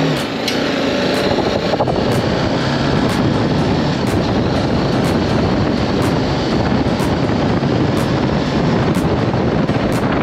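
BMW G310GS motorcycle's single-cylinder engine running steadily while being ridden, buried in a loud, even rush of wind and road noise.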